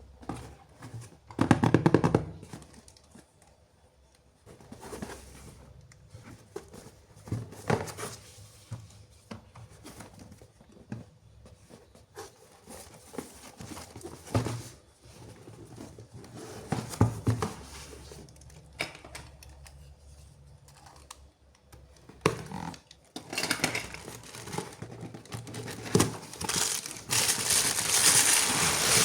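Toy packaging being handled and opened: plastic and cardboard crinkling and tearing, with scattered light clicks and taps. The crinkling grows denser and louder near the end.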